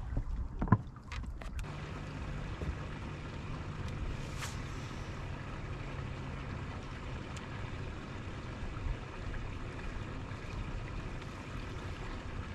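Steady wind and water noise around a bass boat on open water, with a few light clicks in the first second or two and a low hum through the first half.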